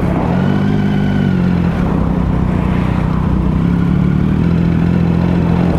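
2007 Triumph Sprint ST 1050's fuel-injected three-cylinder engine running steadily at low speed in traffic, with a slight rise and fall in revs about half a second in.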